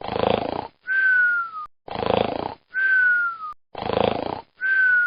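Cartoon-style snoring sound effect: a rasping snore followed by a falling whistle on the breath out, three times over.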